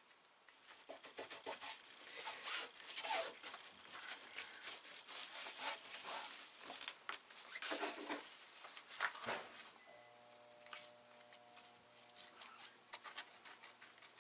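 Dacron sailcloth and the paper backing of a sticky-back Dacron patch crinkling and rustling as they are handled, peeled and rubbed down, in irregular bursts; after about ten seconds the handling grows quieter, with a faint steady hum underneath.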